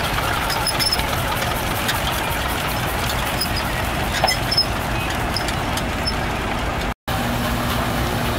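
Engines idling with a steady low rumble under a general outdoor hubbub. The sound drops out completely for a moment about seven seconds in, then a steady low engine hum follows.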